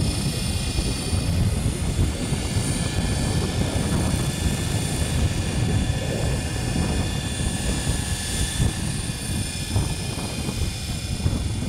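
GAUI Hurricane 550 radio-controlled helicopter flying, its rotor and drivetrain giving a steady whine of several high tones over a low rumble.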